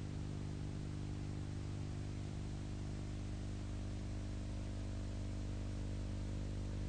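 A steady low hum with a faint hiss, unchanging in pitch and level.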